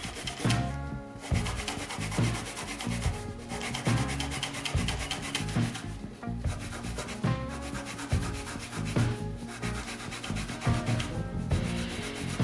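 A 180-grit fret eraser rubbed back and forth over a guitar's metal frets to scrub off rust. The strokes are quick and repeated, with short breaks every couple of seconds.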